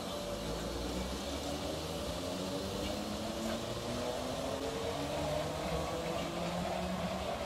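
Merseyrail electric multiple unit pulling away from the platform, its traction motors giving a whine of several tones that shift in pitch as it gathers speed, over a steady wheel-on-rail rumble.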